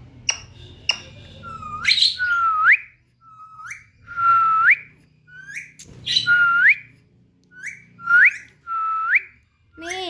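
Indian ringneck parrot whistling: a string of about nine short whistles, each held on one note and then swooping up at the end. A few sharp clicks come in the first second.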